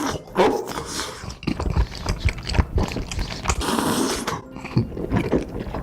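Close-miked eating sounds: someone chewing thick, chewy bunmoja noodles, with irregular wet smacks and clicks and a longer slurp about four seconds in.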